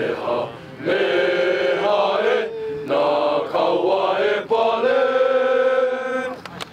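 A group of young men singing a chant in unison in sustained, held notes, phrase after phrase; the last phrase is held long and stops shortly before the end.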